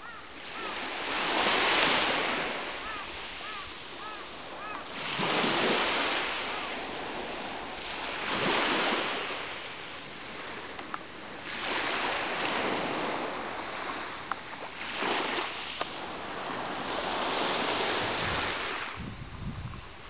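Sea waves washing onto a beach, the surf swelling and fading in repeated surges about every three seconds.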